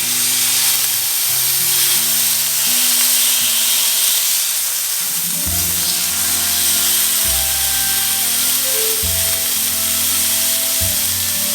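Fillet steaks sizzling steadily as they sear on a hot griddle pan, with background music playing over it.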